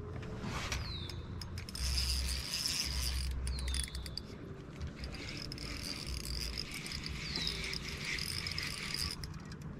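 Fishing reel clicking in rapid runs that pause and resume, with a few short falling squeaks.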